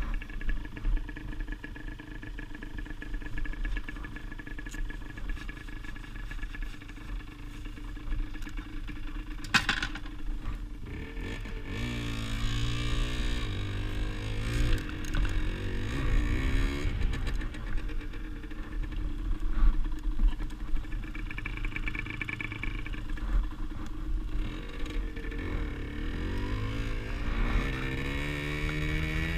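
Rieju SMX 50cc two-stroke motorcycle engine running steadily, then revving and pulling away, its pitch rising and falling again and again as it accelerates through the gears. A single sharp click comes shortly before it moves off.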